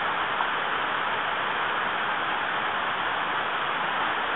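Mountain stream rushing over boulders in small cascades: a steady, even rush of water.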